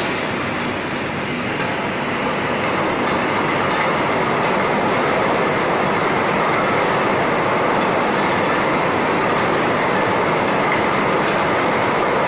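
Bottle unscrambler and conveyor running: a steady mechanical din with a dense rattle of small bottles knocking against each other and the guide rails, and scattered light clicks.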